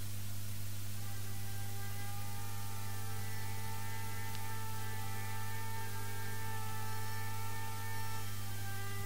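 Steady electrical mains hum, the loudest sound, with faint held orchestral chords from a very quiet passage of a symphony that change every few seconds.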